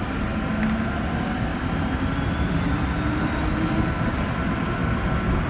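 Cabin noise of an MTR M-Train electric multiple unit pulling out of a station: a steady low running rumble with a thin motor whine that rises gently in pitch as the train picks up speed.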